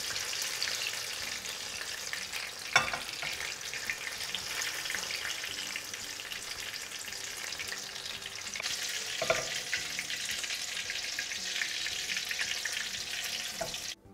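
Paneer pakoras deep-frying in hot oil in a steel karahi, a steady sizzle and crackle. A metal spatula knocks against the pan twice, sharply about three seconds in and more softly later. The frying cuts off suddenly near the end.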